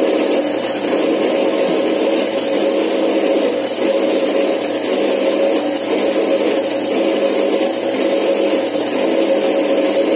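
A power tool running steadily, an even whine with no pauses or changes in speed.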